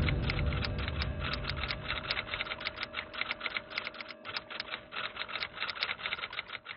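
Typing sound effect: a rapid, even run of keyboard clicks, several a second, gradually getting quieter. A low rumble fades out over the first two seconds.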